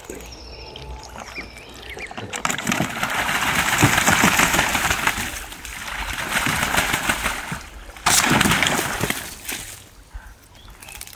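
A Muscovy duck bathing in a small plastic pond, splashing and beating the water with its wings. There are two bouts: a long one starting about two seconds in, and a shorter one that starts suddenly about eight seconds in.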